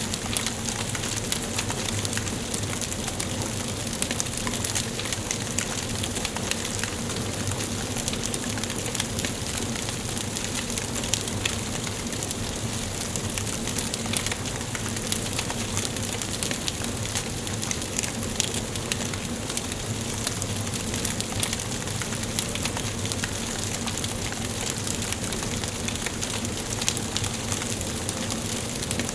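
Wood fire burning in a fireplace, a steady hiss with frequent small irregular crackles and pops.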